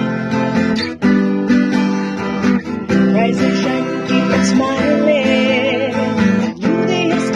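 Intro music led by strummed acoustic guitar, with a wavering melody line over it from about four seconds in.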